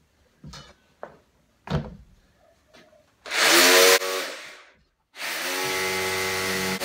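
Handheld power saw on a lattice sheet: a few light knocks as it is handled, then a short loud burst of the motor about three seconds in that winds down, and about five seconds in the saw starts again and runs steadily.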